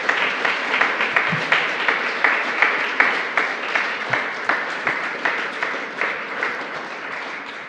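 Audience applauding steadily, dying away over the last couple of seconds.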